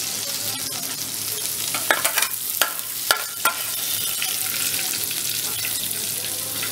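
Hot oil sizzling steadily in a kadai as fried shrimp are lifted out with a metal spoon. Several light clinks of the spoon against the metal come about two to three and a half seconds in.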